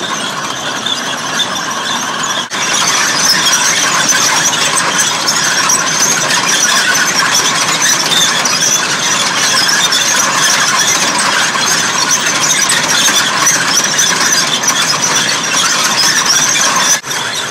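Loud, steady metallic squealing and grinding from the caterpillar tracks of an overturned army tank as they turn, dipping briefly twice.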